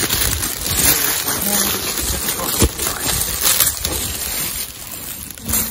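Rustling and crinkling of plastic packaging as items are handled in an open cardboard box, with one sharp tap about two and a half seconds in.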